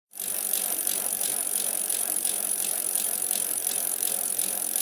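Road bicycles rolling past with freewheels ticking lightly, about three ticks a second, over a steady high hiss.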